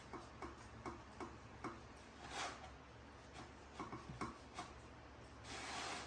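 Knife cutting a jackfruit in a plastic bowl: a string of faint clicks and ticks as the blade works through the fruit, with a short rasping swish about two and a half seconds in and a longer one near the end.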